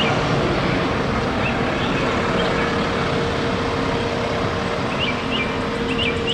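Single-decker city bus driving by and pulling away, with a steady engine whine over even street traffic noise. A few bird chirps come in near the end.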